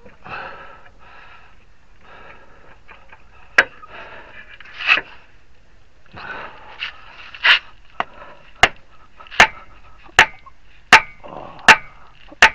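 Dead-blow hammer blows driving a CV axle to seat it in the transmission. About nine sharp blows: two spaced apart, then a steady run of one every 0.8 s or so, some with a short metallic ring.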